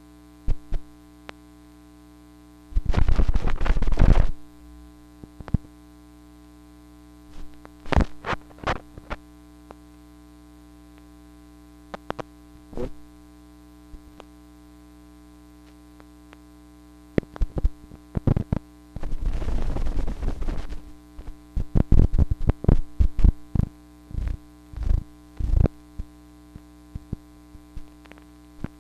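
Soundtrack of a cameraless-animation film: a steady electrical hum under scattered clicks and pops. A loud burst of crackling noise comes about three seconds in, another about two-thirds of the way through, and a dense run of pops follows it.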